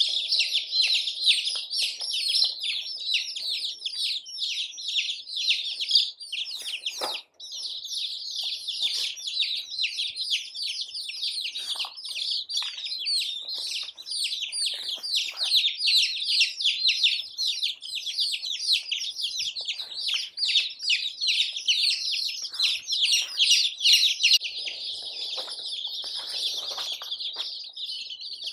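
A large flock of baby chicks peeping nonstop, many high, rapid peeps overlapping into a continuous chorus.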